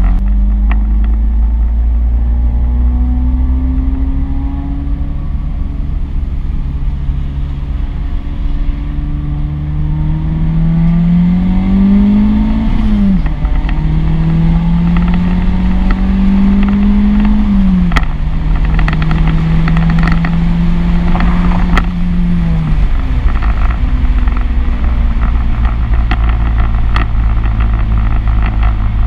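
Nissan Sentra's GA16DE 1.6-litre inline-four heard from inside the cabin while driving, over a steady deep road rumble. The engine note rises under acceleration and drops sharply at each of three upshifts in the second half, then holds steady.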